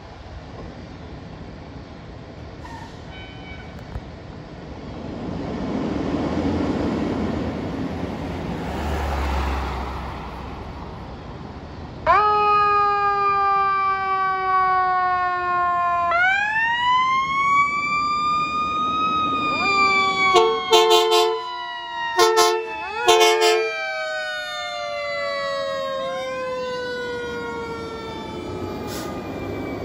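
Fire apparatus leaving the station: diesel engines rumbling and building for the first dozen seconds, then sirens wailing from about twelve seconds in, sweeping up and slowly falling, with two sirens overlapping later on. Several short air horn blasts sound between about twenty and twenty-three seconds in.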